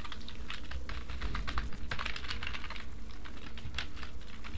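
Typing on a computer keyboard: quick, irregular runs of keystroke clicks.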